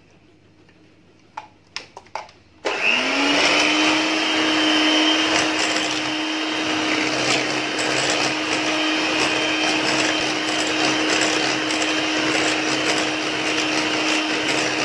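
Electric hand mixer whipping chantilly cream with milk and yogurt. After a few light clicks it switches on about two and a half seconds in, its motor rising quickly to a steady whine that holds to the end.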